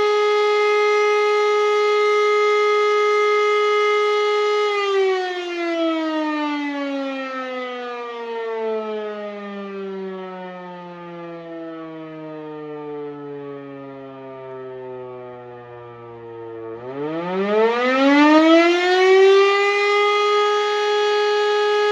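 E57 electromechanical siren sounding the fire alarm signal: its steady tone holds for about five seconds, then the siren is switched off and winds down in a long slow fall in pitch for about twelve seconds. Near the end it is switched on again, spinning back up in a quick rising wail and settling on its full steady tone.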